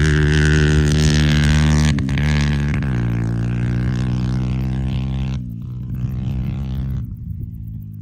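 Motorcycle engine running at a steady pitch, dipping briefly about two seconds in and growing quieter over the last few seconds.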